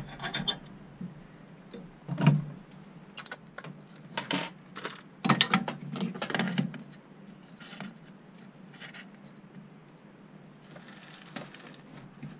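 Clicks and knocks of a laptop motherboard being set into the metal board holder of a rework station, its clamps slid and fastened. The knocks come irregularly, the loudest about two seconds in and a cluster between about five and seven seconds, then only a few light clicks.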